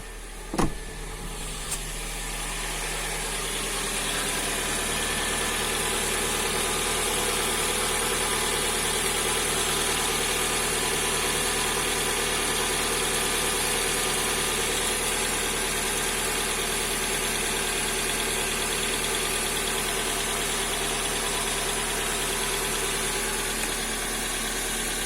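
Hyundai G4GC 2.0-litre inline-four engine idling steadily just after starting, with a single sharp click under a second in.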